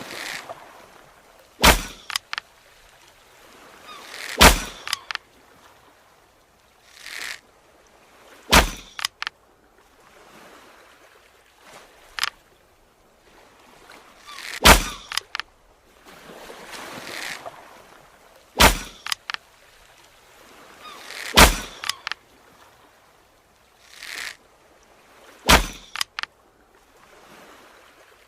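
Bow and arrow shots repeated about seven times, a few seconds apart: each a swelling whoosh ending in a sharp impact, followed by a couple of lighter clicks.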